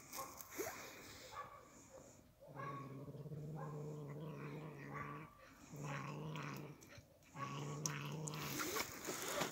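A cat growling over its food: three long, steady low growls, the first starting about two and a half seconds in and lasting nearly three seconds, with short breaks between them. It is a food-guarding warning to another cat close by.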